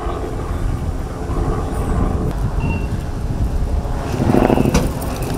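Steady low drone of a police helicopter overhead, with a short louder burst of noise about four and a half seconds in.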